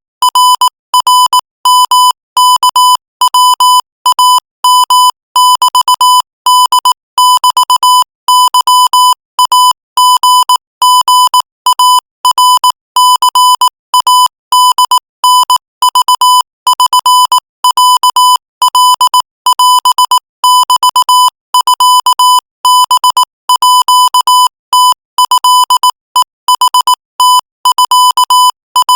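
Morse code sent at 22 words per minute as a single buzzy beep keyed on and off in quick dots and dashes, with short gaps between letters and words.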